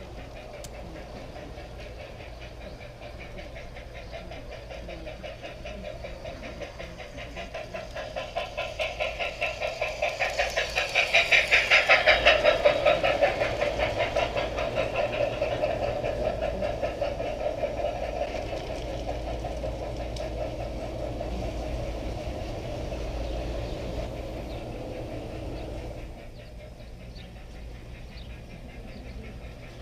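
G-scale model steam locomotive and its train running past close by, with a regular rhythmic beat. The sound swells to its loudest about twelve seconds in as the train passes, eases off, then drops away abruptly near the end.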